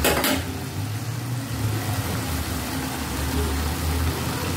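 A steel ladle set down with a brief clatter at the start, then a steady low rumble from the gas stove burner under the pan of cooking fenugreek leaves.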